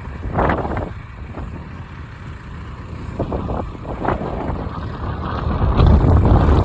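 Tractor engine running with a low rumble, growing louder near the end.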